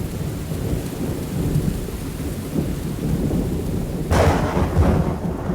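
Stock "Dolby Digital thunderclap" sound effect: rain falling over low thunder rumble, then a sharp thunderclap about four seconds in that rolls on into a deep rumble.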